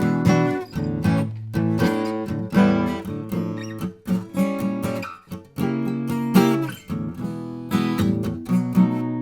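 Acoustic guitar being strummed, a run of chords with quick, sharp plucked attacks.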